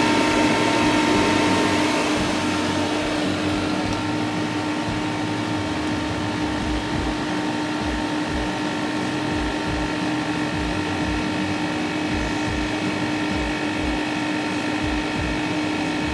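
NAVAC refrigerant recovery machine running in recovery mode, a steady mechanical hum with a whine, pulling the R-134a charge out of a small reach-in cooler. It eases slightly after about two seconds, and a low pulse about twice a second joins from around six seconds in.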